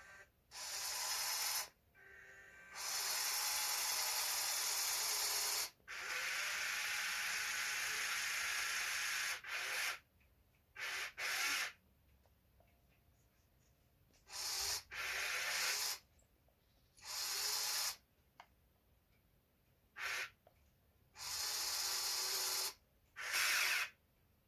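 Motors of a radio-controlled excavator running in a series of short bursts of hissy whirring, each starting and stopping sharply as its functions are worked, the longest about four seconds.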